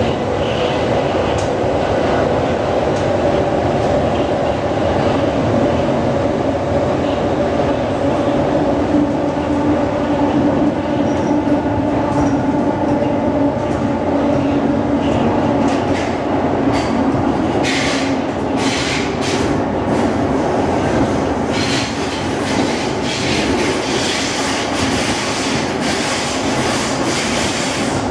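Interior of an SMRT C151 metro train running through a tunnel: a steady loud rumble of wheels and motors with a humming tone. From about halfway through, a run of short sharp clicks and brief squeals from the wheels on the rails.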